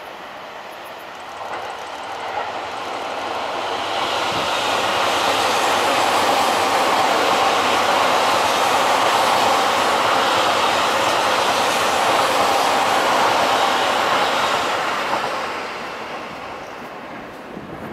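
Seibu 30000 series electric commuter train passing close by, its running noise on the rails swelling over a few seconds, staying loud for about ten seconds, then fading away near the end.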